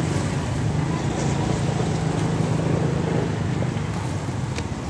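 Motorcycle engines running in street traffic close by, a steady low drone, with a light click near the end.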